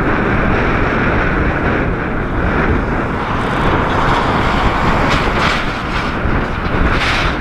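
Jet airliner's engines, a loud steady rush of noise, mixed with strong wind on the microphone.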